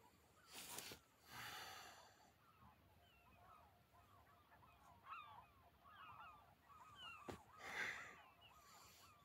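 Faint bird calls, many short chirps, go on throughout. Three louder breaths, quick exhalations, come twice near the start and once near the end.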